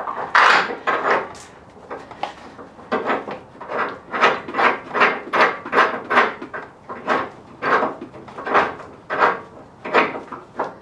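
Hand file rasping back and forth on steel in regular strokes, about two a second, enlarging a tapered shackle hole in a steel winch carrier so the shackle will pass through.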